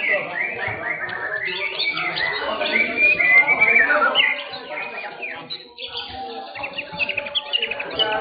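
Several caged white-rumped shamas (murai batu) singing over one another: a dense run of quick whistles, trills and chirps that eases off briefly in the middle.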